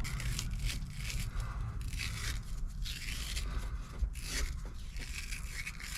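A lead battery terminal being scrubbed clean by hand with rapid, irregular scraping strokes, two or three a second.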